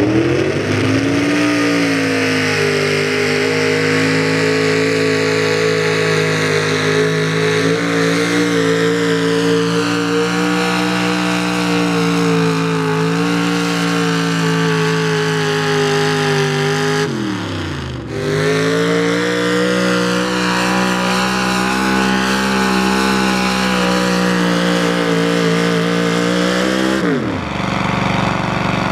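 A square-body Chevrolet pickup's engine runs hard at steady high revs while pulling a weight-transfer sled. The revs fall off about two-thirds of the way through, pick up again, and fall off once more near the end, leaving a lower engine running at idle.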